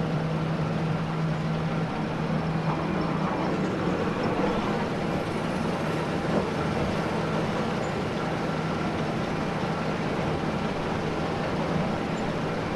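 John Deere T670i combine harvester running steadily while cutting barley, heard from inside the cab: a constant mechanical drone of engine and threshing. A low hum in it drops away about three seconds in.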